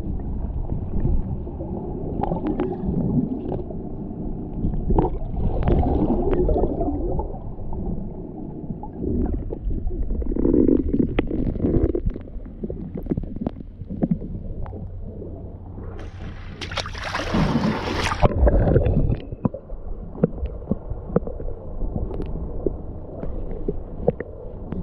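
Muffled sound of a camera moving through seawater: a low rumbling gurgle with scattered clicks, and a brief, louder splashing rush about two-thirds of the way through.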